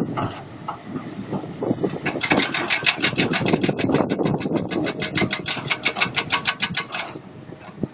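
Kobelco hydraulic excavator's diesel engine running as the bucket digs into broken rock. From about two seconds in until near the end, a rapid, even clicking of about nine strikes a second sits over the engine.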